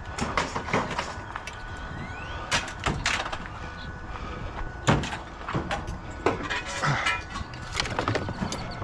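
Scrap metal and parts being handled: a string of irregular knocks and clatters, with a short rattle about seven seconds in.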